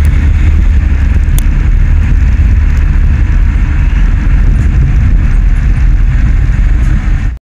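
Loud, steady low rumble of road and wind noise from a vehicle moving in traffic, cutting off abruptly near the end.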